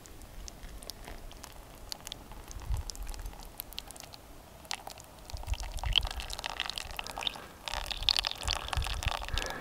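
Hot water poured onto coffee grounds in a drip filter, then brewed coffee running through the filter into a collapsible cup. The liquid sound grows louder from about halfway in.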